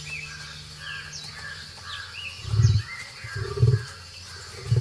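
Three short, low tiger grunts about a second apart in the second half, over birds chirping with quick falling calls.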